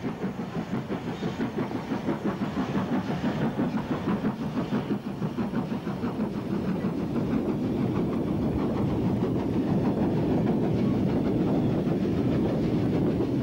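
Steam locomotive hauling a freight train past, its exhaust beats coming in a fast rhythm, followed by the freight wagons rumbling and clattering steadily over the rail joints, the sound growing a little louder in the second half.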